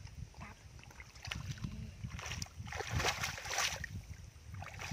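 Splashing and sloshing of shallow muddy water as hands grope for a catfish and bare feet wade through it, loudest from about two to four seconds in, over a steady low rumble.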